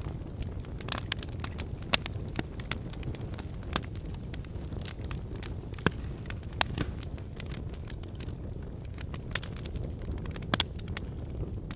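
Wood fire crackling in a fireplace: a steady low rumble of flames with irregular sharp pops and snaps, a few louder ones standing out.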